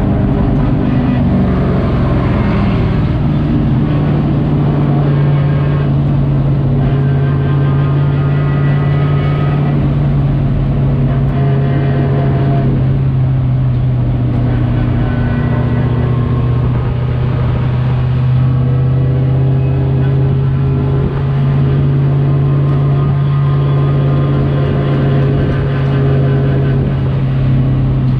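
Race truck's engine running at a steady, almost unchanging pitch, heard from inside the cab.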